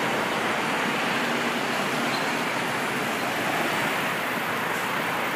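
Steady traffic noise from a busy multi-lane road, with cars, buses and trucks passing.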